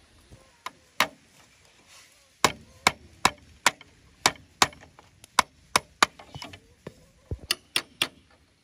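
A hand tool striking wood: a run of about fifteen sharp blows, roughly two or three a second, broken by short pauses.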